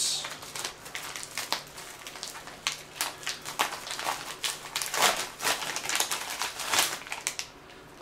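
Plastic bubble mailer being torn open and handled: irregular crinkling and crackling of the plastic, thinning out near the end as the packet inside is pulled free.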